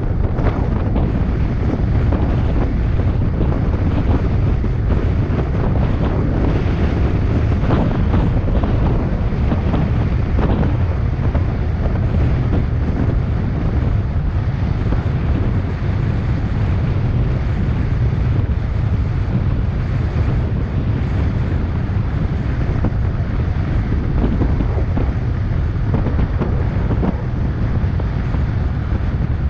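Loud wind buffeting the microphone of a camera on a bicycle descending a highway hill at high speed: a steady low rumble that flutters in gusts.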